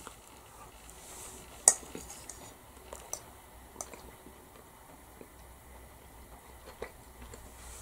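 Metal fork clinking and scraping in a ready-meal tray of chicken curry: a scatter of light clicks, the sharpest a little under two seconds in.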